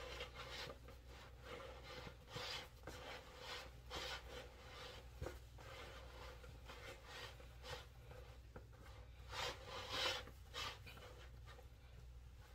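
Gloved hands tossing and mixing bread cubes, oysters and vegetables in a bowl: soft, irregular rubbing and squishing strokes, a little louder about ten seconds in.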